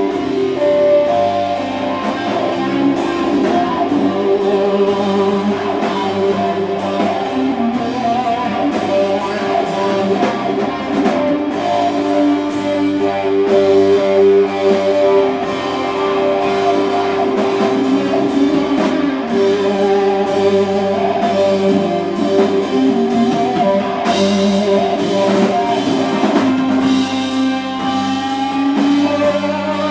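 Live rock band playing electric guitars and drum kit, with long held guitar notes over steady drumming.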